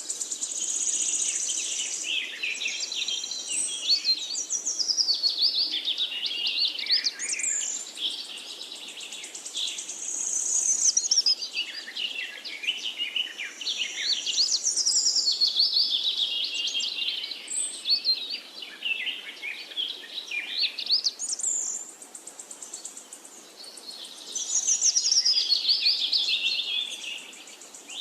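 A songbird singing repeated phrases, each starting with a high held note and tumbling down in pitch through a quick run of notes, one phrase every four to six seconds.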